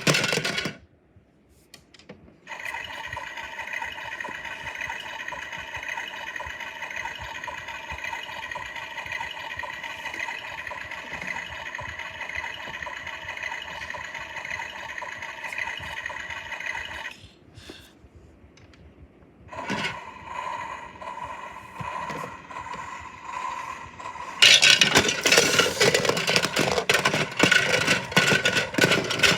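Battery-powered toy washing machine running: a steady motor whine that stops and restarts a few times, then a louder rattling and scraping from the drum near the end.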